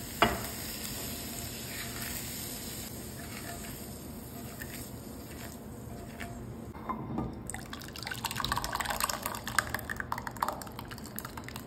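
A wok knocks once as stir-fried mixed vegetables slide out of it into a ceramic dish, with a few light clicks of vegetables landing. From about eight seconds in, thick creamy soup pours from a pot into a glass bowl with a run of wet, crackling ticks.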